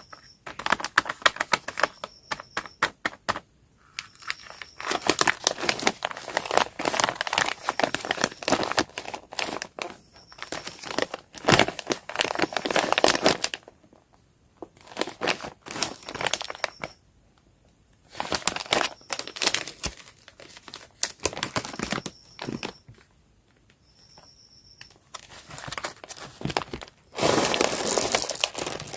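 Plastic candy wrappers being crinkled and torn open by hand, in crackly runs of a few seconds with short pauses between, ending in a longer, louder tear.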